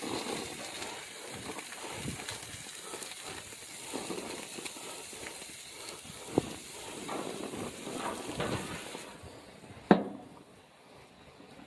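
Burger patties sizzling on a gas grill, with a few light clicks. About ten seconds in there is a single loud clunk as the grill lid is shut, and the sizzle drops away.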